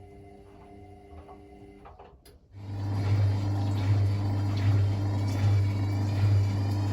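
Hotpoint WML540 washing machine: a relay clicks about two seconds in, then the drain pump starts with a steady low hum and water rushing through it, pulsing slightly as it pumps out.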